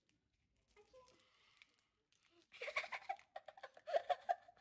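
A girl's muffled voice in quick pulses on a held pitch, starting about halfway in, over the crackle of a plastic candy wrapper that she is pulling at with her teeth and fingers.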